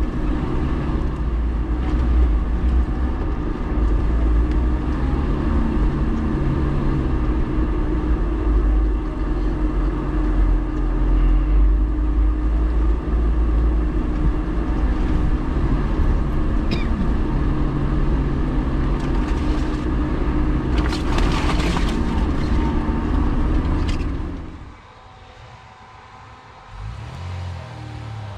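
4x4 off-road vehicle's engine running steadily at low speed on a rough forest track, heard close up with a deep rumble, and a brief hiss about three-quarters of the way in. About four seconds before the end the sound drops off suddenly to a quieter outdoor background, with a distant vehicle's engine faintly approaching.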